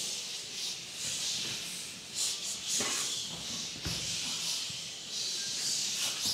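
A choir making a hissing vocal effect with no sung notes, with a few sharp clicks and a low thud about four seconds in.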